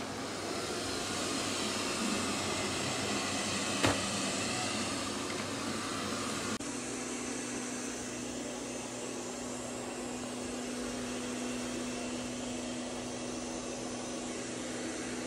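Robot vacuum cleaner running with a steady motor whir and brush noise, with a single sharp click about four seconds in. The sound changes abruptly partway through, after which the whir carries a steady low hum.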